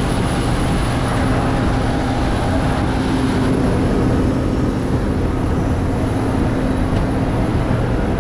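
Steady drone of a parked airliner's turbine machinery, with a constant hum and a faint high whine running under it.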